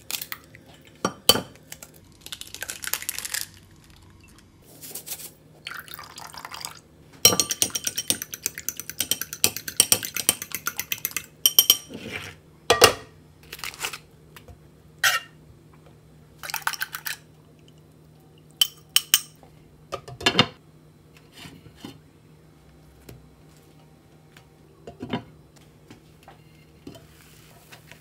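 Cooking sounds: an egg cracked against a glass bowl, then several seconds of rapid clinking as the eggs are beaten in the glass bowl. Scattered single knocks and clinks of a utensil on a nonstick frying pan follow.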